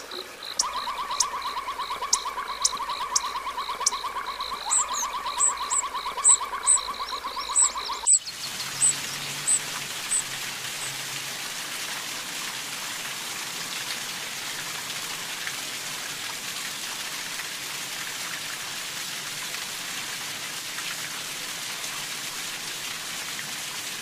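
For about the first eight seconds, a rapid pulsed trill around 1 kHz with regular high ticks and chirps. It then changes abruptly to a steady, even hiss of water noise resembling rain, with a few high bird chirps in its first seconds.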